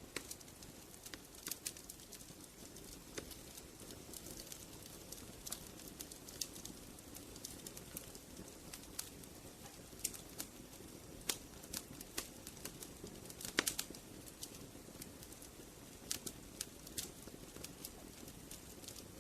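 Wood fire crackling: irregular sharp pops and snaps, several a second, over a soft steady rush of burning. A louder cluster of pops comes about two thirds of the way through.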